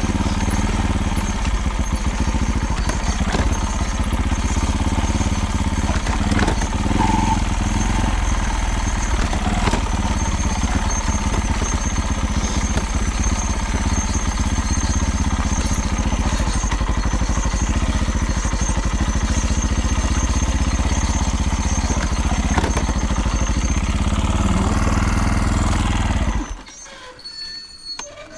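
Vehicle engine running steadily with a rattling, clattering noise through it: the unexplained rattle the owner is trying to trace. The engine shuts off abruptly near the end.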